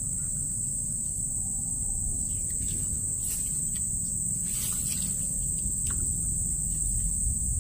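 Insects droning steadily in one constant high-pitched tone, over a continuous low rumble, with a few faint clicks.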